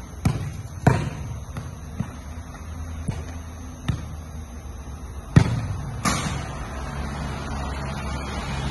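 A football being kicked, juggled and bouncing on a concrete court: about eight sharp thuds at uneven intervals, the loudest about five and a half seconds in.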